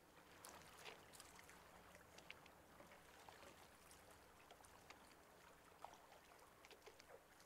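Near silence: a faint wash of water from the film's soundtrack playing over the room speakers, with a few soft scattered taps that fit footsteps.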